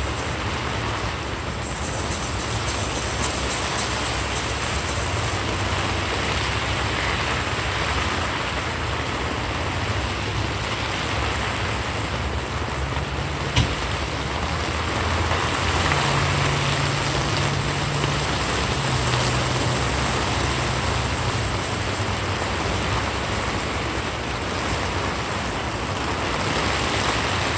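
Steady hissing background noise with a low engine hum underneath that shifts in pitch now and then, and a single sharp click about halfway through.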